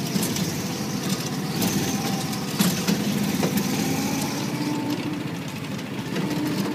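Go-kart engine running steadily while the kart is driven around the track, with a few short clicks and knocks.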